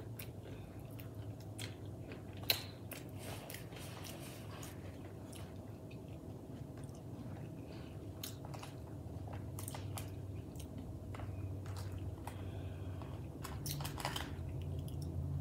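Close-up chewing of a mouthful of burger, with scattered small crunching clicks and one sharper click about two and a half seconds in. A low steady hum runs underneath.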